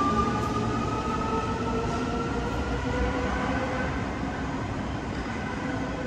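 CAF S/300 electric metro train pulling away from the platform, a whine rising slowly in pitch over a low rumble as it accelerates. The sound fades gradually as the train moves off.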